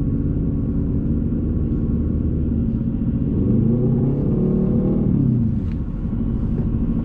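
2014 Nissan GT-R's twin-turbo V6 idling, heard inside the cabin through its titanium mid-pipe and cat-back exhaust. About three seconds in, an engine note climbs and then falls back in pitch over about two seconds.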